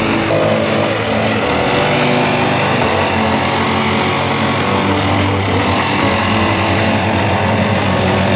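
A Stihl BR700 backpack leaf blower's two-stroke engine running steadily while blowing leaves off the lawn, with background music with guitar laid over it.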